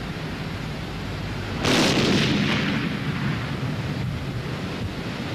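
An explosion sound effect: a steady low rumble, then a sudden loud blast about two seconds in that dies away over the next couple of seconds.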